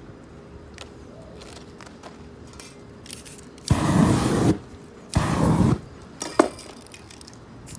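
Two short blasts of hiss from an aerosol spray-paint can, each under a second, with abrupt starts and stops. A single sharp click follows.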